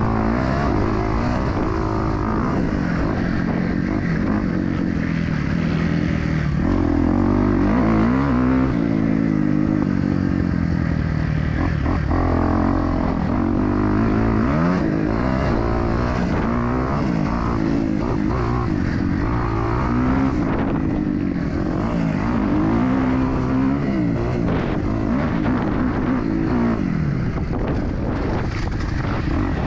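Motocross dirt bike engines racing, revving up and down through the gears, their pitch rising and falling again every few seconds.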